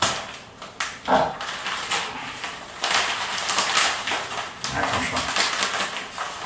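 Plastic packet of Parmesan cheese being pulled and torn open. It crackles and rustles in irregular bursts, with a sharp click at the start and another about a second in.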